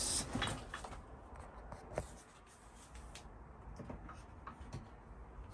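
Faint rustling and handling noises with scattered light clicks, the sharpest about two seconds in.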